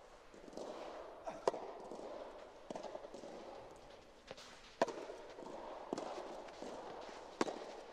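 A soft tennis rally: three sharp racket strikes on the rubber ball, about two and a half to three seconds apart, with fainter knocks between them.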